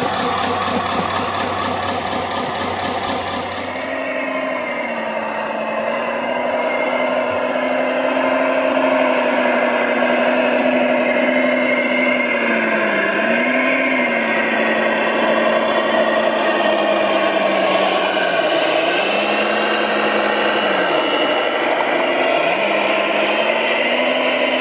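Scale RC wheel loader running with a steady electric motor and gear whine. Its pitch sags and comes back up several times as the drive or hydraulics take load. A different, rougher RC machinery noise from loading work fills the first few seconds.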